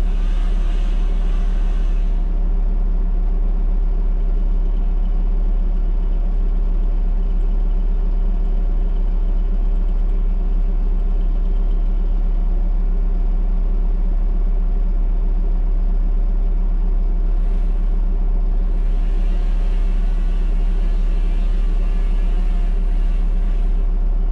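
Diesel engine of a Bobcat T77 compact track loader running steadily at an even speed, a deep drone with no revving. A hiss joins in near the end.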